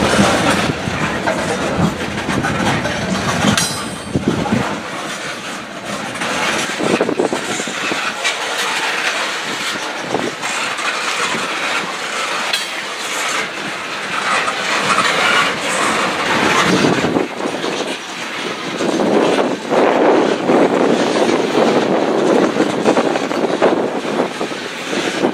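Freight train of molten-sulphur tank cars rolling past close by, the steel wheels clattering steadily over the rail joints.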